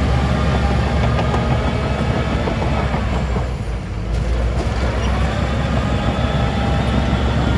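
Heavy diesel construction machinery running steadily under load, with a deep engine rumble and a brief dip in loudness about three and a half seconds in.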